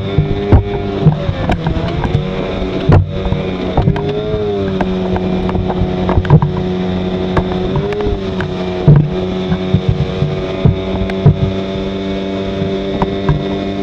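15 hp Mercury outboard motor running steadily under way, its pitch sagging briefly a few times, with frequent short sharp knocks over it.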